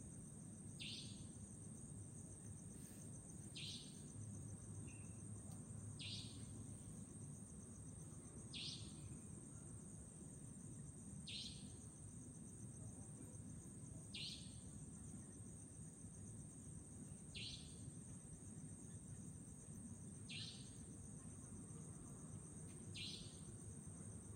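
Savanna nightjar giving its short, sharp call nine times, one about every two and a half to three seconds. Behind it run a steady high insect trill and a low background rumble.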